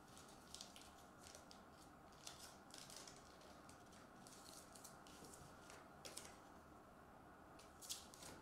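Faint rustling and scraping of trading cards and paper slips being handled, a string of short soft strokes.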